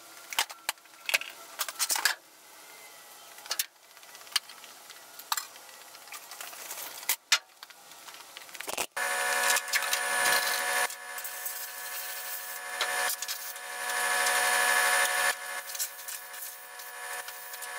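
Sharp clicks and taps of hand tools on the car's bolts. About nine seconds in, a power tool's motor starts running steadily with a whine and a rasping edge, swelling louder for a couple of seconds before easing back.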